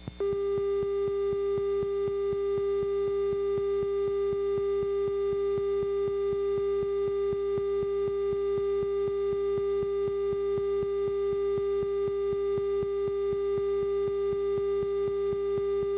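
A steady, mid-pitched electronic alert tone held unbroken, with faint overtones, under a regular ticking of about four clicks a second.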